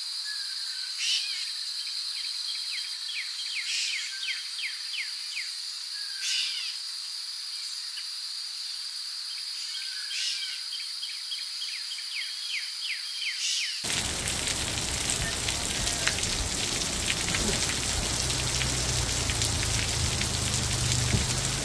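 Birds chirping and trilling over a steady high-pitched tone. About fourteen seconds in, this gives way to a heavy hailstorm: rain and hailstones pelting the ground and parked motorcycles in a dense, even hiss with scattered ticks.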